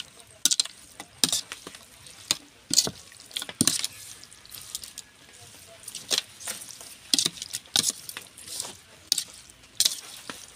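Metal spoon stirring raw fish and vinegar in a ceramic bowl: irregular clinks and scrapes against the bowl, one or two a second, with wet sloshing of the mix.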